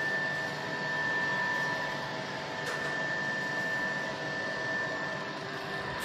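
Large industrial laundry machine running: a steady whir with a thin, high whine held over it.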